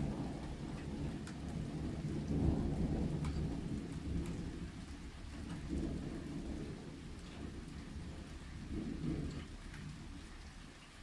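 A thunder rumble that starts at once, is loudest a couple of seconds in, swells twice more and then fades away. Light rain ticks sparsely underneath.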